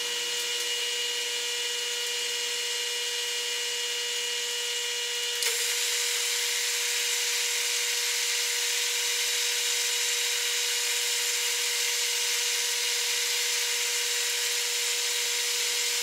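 Metal lathe running steadily with a constant whine while a long twist drill is fed into a small deep hole in the spinning workpiece. A faint click comes about five seconds in, after which the hiss grows a little louder.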